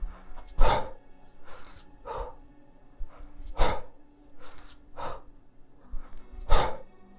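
A man breathing hard in rhythm with kettlebell cleans, one forceful exhale about every three seconds with quieter breaths between them.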